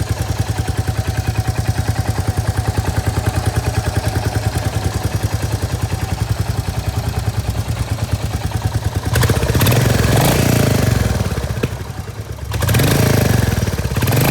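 Royal Enfield Hunter 350's single-cylinder engine idling with an even, steady pulse, then revving up about nine seconds in, easing off briefly and revving again near the end. The aftermarket sump guard is now mounted on rubber washers, which keep it from touching metal to metal and cure the humming it used to make.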